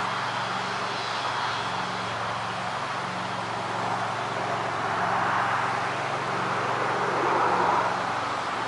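Outdoor wind blowing steadily and gusting up about five and again seven and a half seconds in, over a low, steady hum that pulses on and off.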